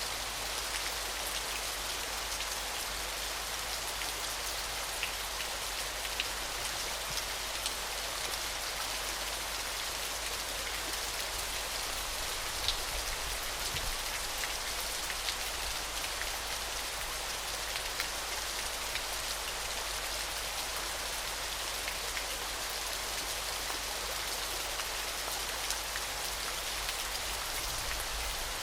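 Falling water splashing in a steady, even hiss, with scattered drop-like ticks.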